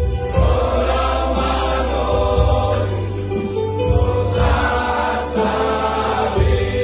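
Voices singing a Toba Batak Christmas hymn over instrumental accompaniment with sustained bass notes that change every second or two.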